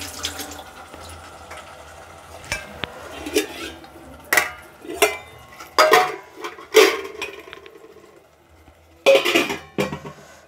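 Stainless steel cookware clanking: a spatula knocks against a steel pot of peas and onions several times, then a steel plate is set over the pot as a lid with the loudest clank near the end.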